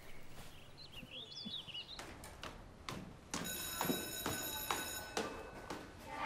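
Electric school bell ringing steadily for about two seconds, starting and stopping abruptly past the middle. Before it, a few short bird chirps and some scattered knocks.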